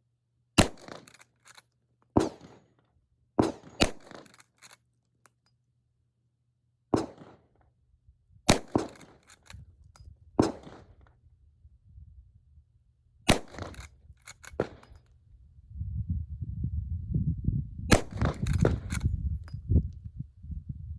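Rossi R92 lever-action rifle in .45 Colt firing a string of about eight shots, spaced roughly one to three seconds apart, with smaller clacks between shots as the lever is worked. A low rumbling noise sets in for the last few seconds.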